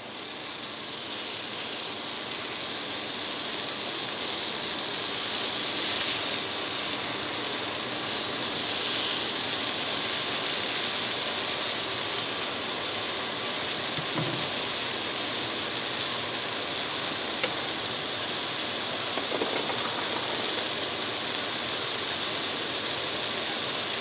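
Duck breasts sizzling skin side down in a cast iron skillet as their fat starts to render. The sizzle builds over the first few seconds, then holds steady, with a few light clicks.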